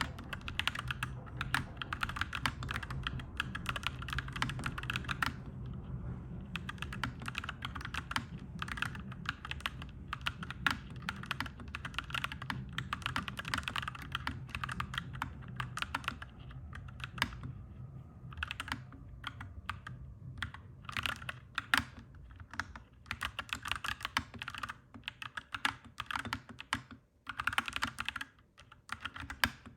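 Fast, continuous typing on a clacky mechanical keyboard, with a few brief pauses between runs of keystrokes. A low steady rumble sits underneath and fades away a little past the middle.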